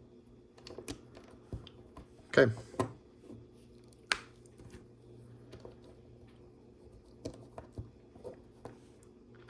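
Plastic LEGO bricks clicking and clattering as pieces are picked out and pressed together, a scatter of light clicks with a sharper one about four seconds in.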